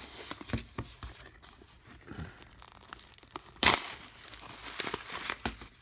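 Foil-lined freeze-dried meal pouch crinkling as it is squeezed and turned in the hands, with one sharper, louder crackle a little over halfway through.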